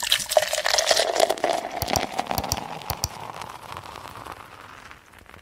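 Outro sound effect: a crackling hiss full of small clicks that fades away over about five seconds.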